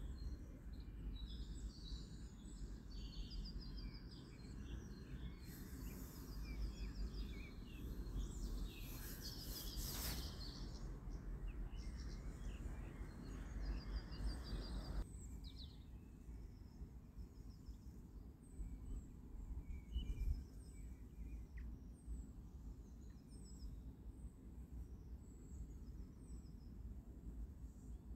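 Faint birdsong, many short chirps, over a low steady background hum; part of the hum drops away about halfway through.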